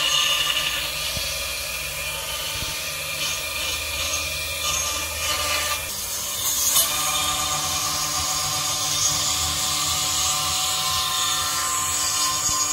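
Robot-mounted milling spindle running at speed while its small end mill cuts a relief into wood: a steady high whine over the hiss of the cut.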